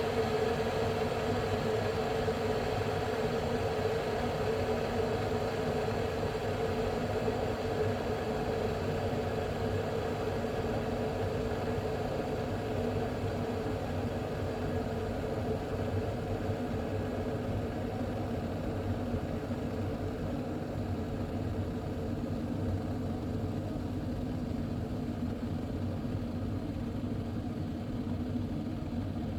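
Aroma Housewares 1.0 L stainless steel electric kettle heating water toward the boil: a steady rumbling hiss of water heating up, not yet at a full boil. It eases slightly in loudness over time.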